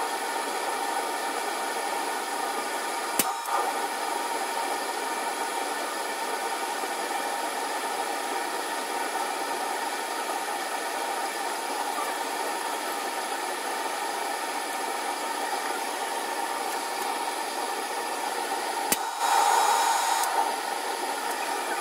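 PID-controlled forge running, sped up four times, with a steady rushing noise. About three seconds in there is a sharp click. Near the end another click comes and the rush grows louder for a second or two, as the controller's output switches the heat on.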